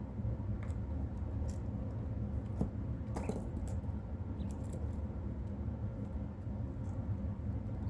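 Quail: scattered soft clicks and brief high squeaks, busiest about three seconds in, over a steady low hum.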